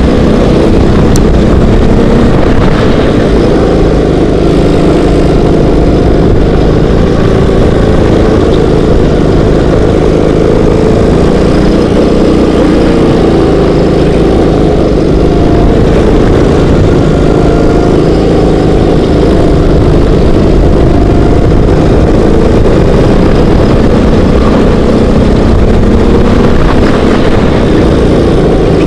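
Rental kart engine running hard at close range, heard from on board the kart, loud and continuous, its pitch shifting slightly as the kart goes through the corners.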